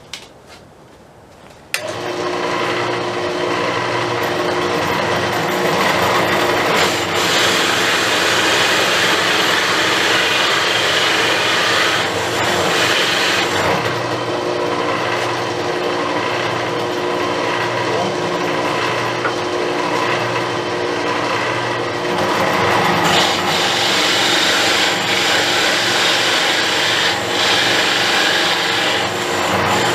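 A drill press starts with a sudden jump about two seconds in and then runs steadily, its motor humming under the rasping of a hole saw cutting a round hole through a wooden board. The cutting noise swells and eases several times as the saw is fed into the wood.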